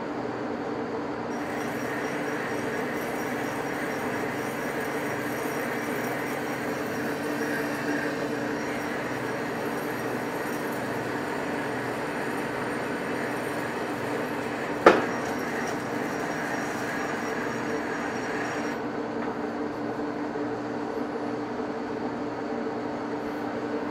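Large manual engine lathe running at low speed with a steady hum and gear tones, while a single-point tool cuts the internal thread of a hydraulic-cylinder barrel nut. The hiss of the cut comes in about a second in and stops a few seconds before the end, with one sharp click near the middle.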